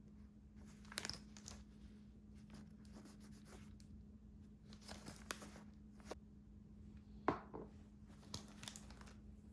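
Paper or plastic packaging being handled: short rustles and tearing sounds in scattered bursts, with one sharper crackle a little after seven seconds, over a faint steady hum.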